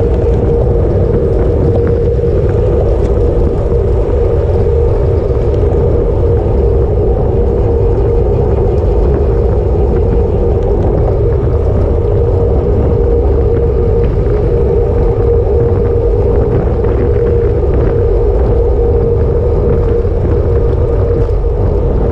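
Wind rushing over an action camera's microphone on a moving road bike: a steady, loud rumble with a constant hum running through it.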